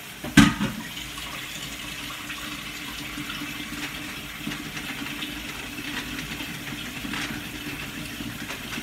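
Shredded chicken in gravy sizzling and bubbling in a skillet, stirred with a silicone spatula. One sharp knock comes about half a second in.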